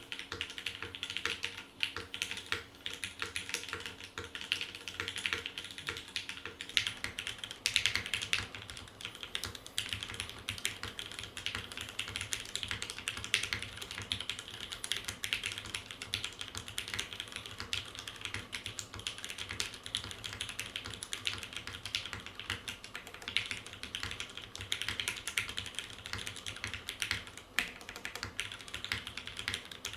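Continuous typing on a mechanical keyboard with Cherry MX Black linear switches: a dense, unbroken stream of key clacks.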